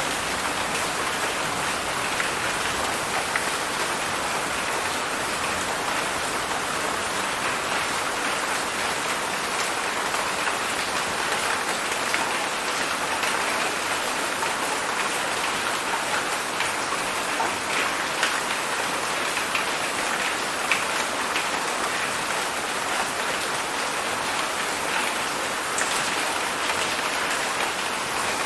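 Heavy rain falling and pattering on surfaces: a steady, even hiss dotted with the ticks of single drops.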